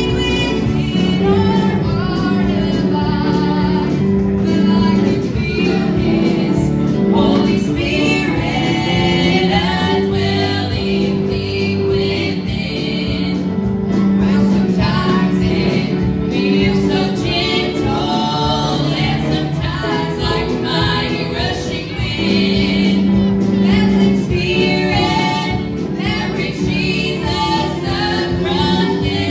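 A live gospel band playing: women's voices singing the lead and harmony over piano, electric bass guitar and drums.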